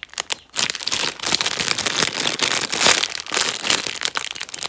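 Thin plastic packaging crinkling and crackling as it is handled, a dense run of sharp crackles throughout.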